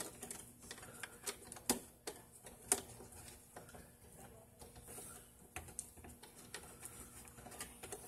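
Scattered light clicks and taps of hands handling wiring and plastic at a wall-mounted fire alarm cellular communicator, over a faint steady hum.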